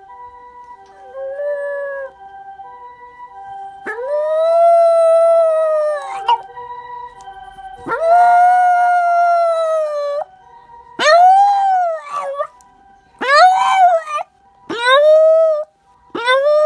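Shiba Inu howling: a brief first howl, then two long howls of about two seconds each that rise and level off, then a run of shorter howls about a second each, rising and falling, in quick succession.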